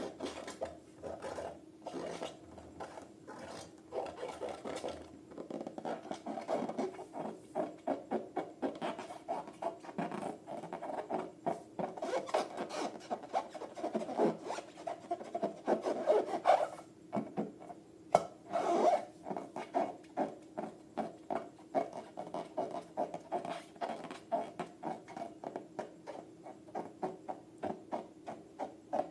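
Slime being mixed, with rhythmic rubbing, squishing strokes about two a second that pick up in pace partway through. A single sharp click about 18 seconds in.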